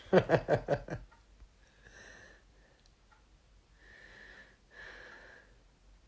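A man's voice briefly in the first second, then a few faint breaths through the nose, each a soft hiss with a slight whistle.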